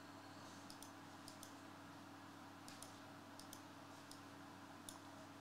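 Near silence: about a dozen faint, light computer clicks scattered irregularly over a steady low electrical hum.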